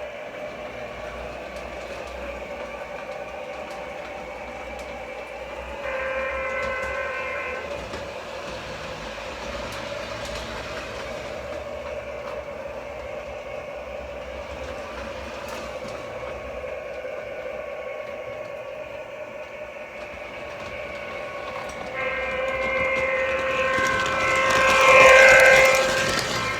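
Model train locomotive's sound system playing a steady running sound, with a short horn blast about six seconds in and a longer, louder horn blast near the end.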